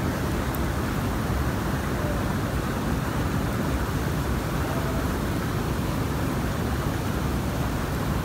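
Steady rushing and splashing of a hot spring pool's churning water, with arching water jets pouring into it.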